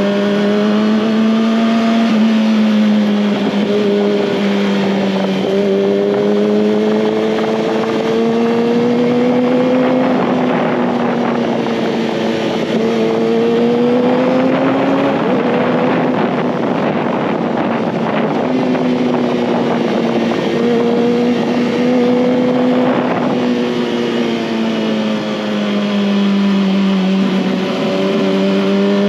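Kawasaki ZX-6R's inline-four engine running at steady mid-high revs while riding, its pitch rising and falling gently with the throttle through bends. Wind noise swells over the engine in the middle stretch and eases off again.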